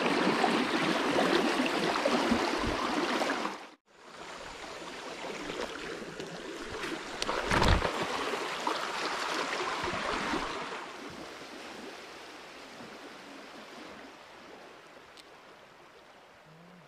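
Fast river current rushing around half-submerged logs: a steady rush of water that cuts off briefly a little before four seconds in, comes back with a single thump about halfway through, then fades out gradually.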